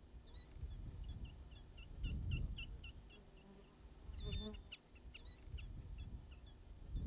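Killdeer calling: a rapid series of short, high piping notes, about four a second, with a sharper call about four seconds in, over a low rumbling background noise.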